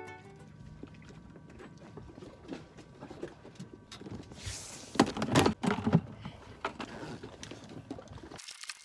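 Plastic buckets and a lid knocking and thumping on a boat deck as they are handled, in a cluster of loud knocks about halfway through, over a low background of wind and water.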